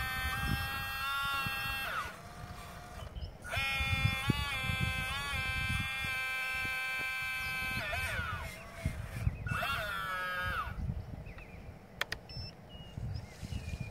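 Motors of a radio-controlled model Cat 320 excavator whining at a steady high pitch in three stretches as it digs and swings, the pitch sagging under load and sliding down as each stretch stops. A single sharp click near the end.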